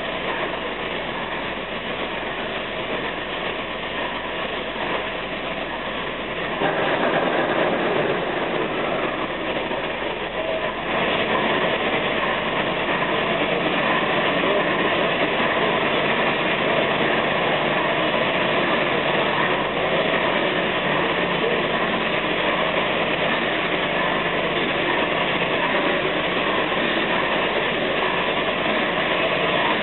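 Bulleid Battle of Britain class steam locomotive 34067 Tangmere pulling slowly away, with a steady hiss of steam from its cylinder drain cocks. The hiss grows louder about six seconds in and again about eleven seconds in.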